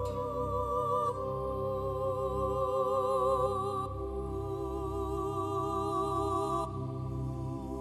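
Background music: a slow melody of long held notes with vibrato, changing every few seconds.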